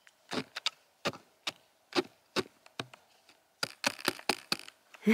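Woodpecker tapping on a tree: a string of sharp, irregular knocks that come closer together in the second half.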